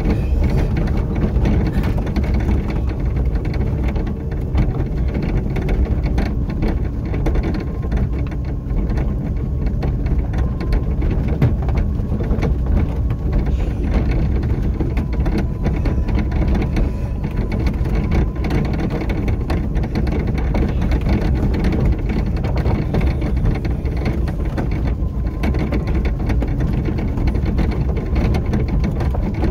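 A vehicle rolling slowly along an unpaved gravel lane: its tyres crackle steadily over grit and stones over a continuous low rumble.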